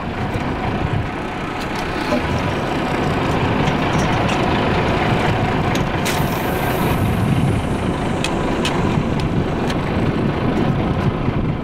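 Steady low rumble of a fishing boat at sea, its engine idling under wind and wave noise. A brief high hiss comes about six seconds in, as a heavy GT lure is cast on a spinning rod.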